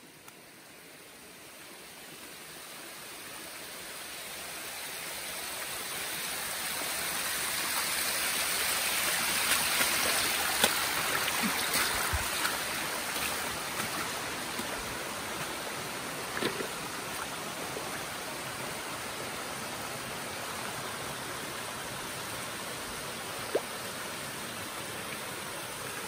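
Hot-spring stream water rushing and trickling over bare rock and down a small cascade, growing louder over the first ten seconds and then holding steady. A few brief knocks cut through it.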